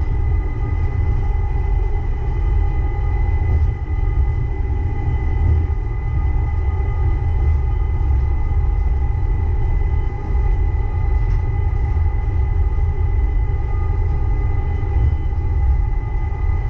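Uijeongbu light-rail train, a rubber-tyred VAL car, running at steady speed: a low rumble with a few steady whine tones from the drive, holding level pitch.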